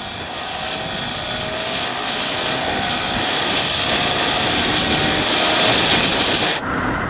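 Yamaha R15's single-cylinder engine pulling in gear while riding, its note slowly rising as the bike gathers speed, under a heavy rush of wind over the microphone. The sound changes abruptly near the end.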